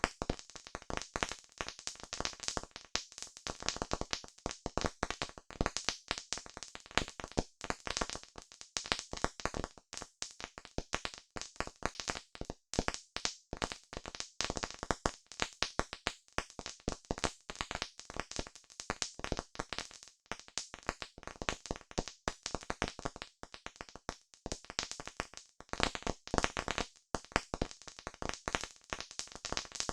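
Campfire crackling: a dense, irregular run of sharp pops and snaps from burning wood.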